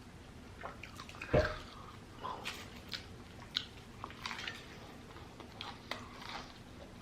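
Close-up eating sounds: a person biting into and chewing a fried chicken sandwich, with short crunches and wet mouth clicks. The loudest is a single bite about a second and a half in.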